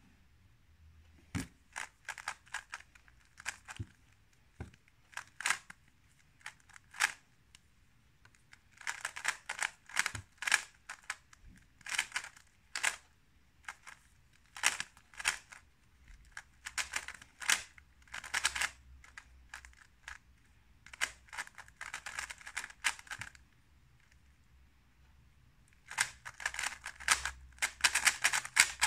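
A 3x3 speedcube being turned fast by hand: runs of rapid plastic clicking and clacking as the layers snap round, broken by short pauses between sequences. The quickest, densest run comes near the end.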